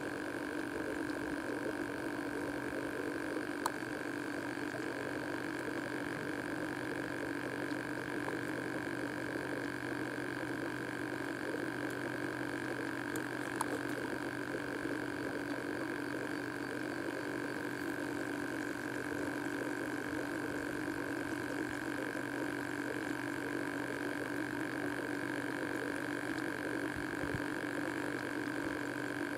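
A steady, unchanging hum holding two fixed pitches, one low and one higher, with two faint clicks, about four and fourteen seconds in.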